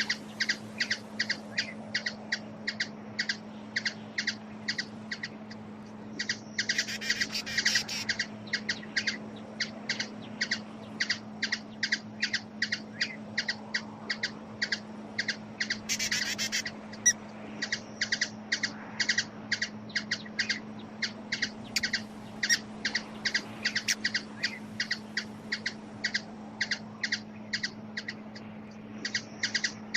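Hummingbird giving a long run of sharp chip notes, evenly repeated at about three a second, with two brief denser twittering flurries, over a steady low hum.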